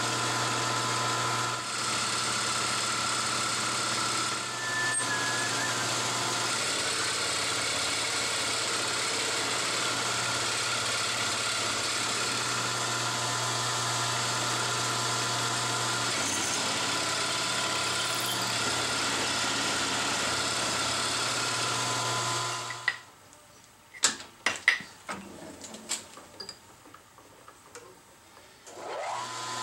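Milling machine spindle running steadily with an end mill in aluminium, a hum under a steady whine. It shuts down about 23 seconds in, followed by a few sharp clicks and knocks, and the motor spins up again with a rising whine near the end.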